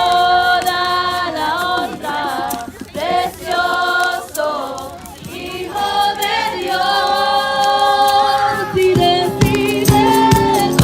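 A group of voices singing a slow Spanish-language worship song in long, held notes, with no instruments at first. A rhythmic beat comes in near the end.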